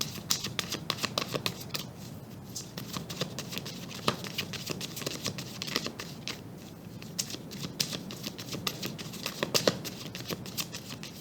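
A tarot deck being shuffled by hand: a continuous run of quick flicks and taps of cards.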